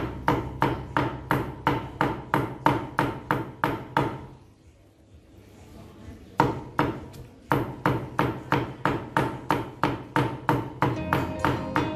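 Knife chopping on a cutting board in quick, even strokes, about three a second, each with a short ring. The chopping pauses for about two seconds near the middle, then carries on at the same pace.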